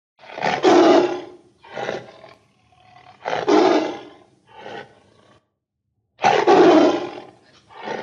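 Tiger roaring: three loud, long roars, each followed by a shorter, quieter call, with a brief silence before the third roar.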